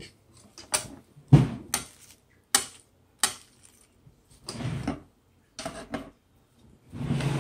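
Packaging being handled during an unboxing: a string of sharp clicks and taps with short rustling noises in between.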